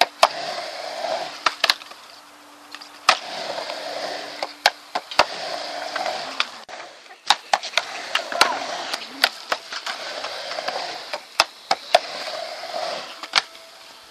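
Skateboard wheels rolling back and forth on a concrete mini ramp, in runs of a second or two, with a short lull about two seconds in. Many sharp clacks run through it as the board hits the coping, pops and lands.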